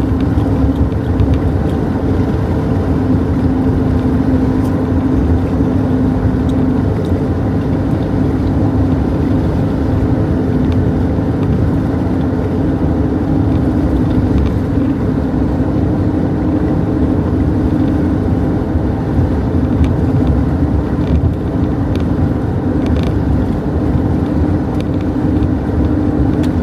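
Steady road and engine drone heard from inside a car's cabin at highway speed, with a constant low hum running under the noise.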